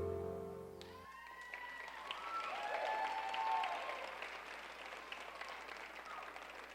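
A final piano chord dies away in the first second, then a small audience applauds with a few voices calling out, the clapping thinning and fading near the end.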